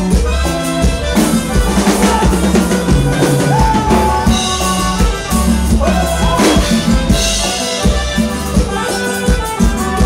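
Norteño dance music from a band, with a steady drum-kit beat over a bass line and melodic instruments on top.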